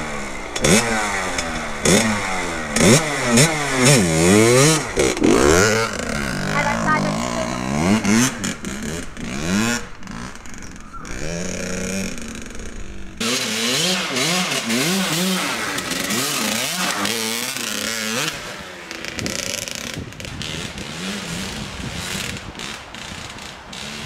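Kawasaki KX100 single-cylinder two-stroke dirt bike revving hard again and again, its pitch climbing and dropping about once a second for the first ten seconds. After a short lull the engine runs on more evenly under a steady hiss.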